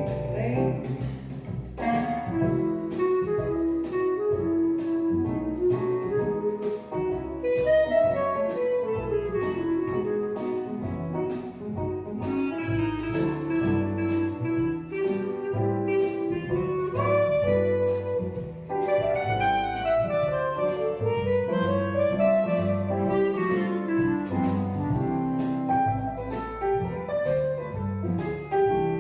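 Instrumental jazz passage with no vocals: a lead melody line rising and falling over walking bass and a steady ticking beat.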